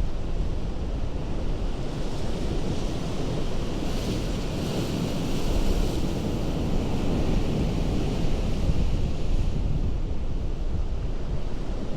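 Ocean surf breaking on a rocky coast: a steady rush of water, with one wave's hissing wash swelling a couple of seconds in and fading again near the end, over a low rumble of wind.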